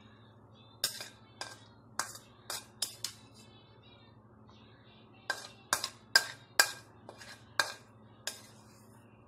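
A spoon clinking and scraping against bowls while food is scooped. The sharp clinks ring briefly and come in two irregular runs, separated by a pause of about two seconds.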